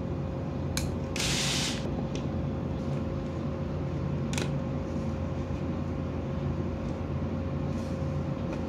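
Small hand-tool noises over a steady background hum: a click and a short scrape about a second in as pliers work the yellow wire, then a few light ticks, one near the middle, as a screwdriver tightens the wire into the timer's terminal.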